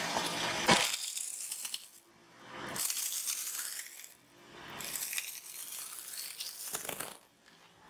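A sharp knock just under a second in. Then a dry green floral-foam block crunches and crackles as a car tyre rolls slowly onto it and crushes it, in two long stretches with a short pause between.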